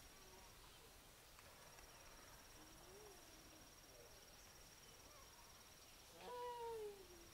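Near silence with a faint, steady, high-pitched trill. About six seconds in comes one drawn-out animal call that falls in pitch as it ends.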